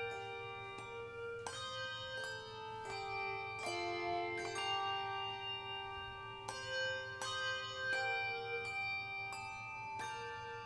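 Handbell choir ringing a slow piece: chords of bell tones struck every second or so, each ringing on and overlapping the next.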